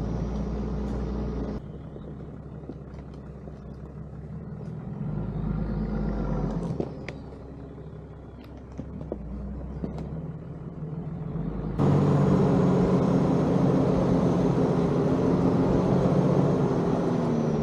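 A Nissan GQ Patrol 4WD running along a dirt bush track: a steady low engine hum with scattered small ticks and knocks. The level drops abruptly early on and jumps up again, louder and fuller, about twelve seconds in.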